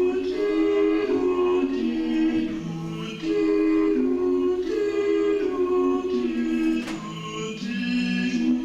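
Choir of several voices singing held chords in close harmony, the chords changing every second or so.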